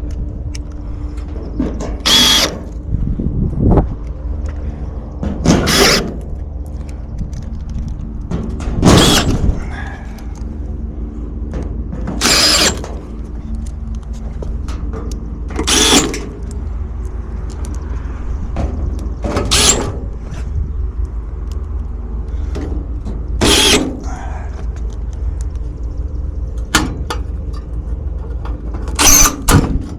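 Steady low hum of running machinery, with a short burst of noise about every three and a half seconds.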